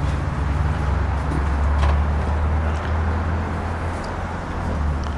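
A steady low mechanical hum, the loudest thing heard, under open-air market background noise, with a few faint clicks.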